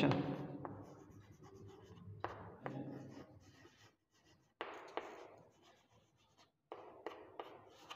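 Chalk writing on a chalkboard: faint scratching in several short strokes with pauses between them.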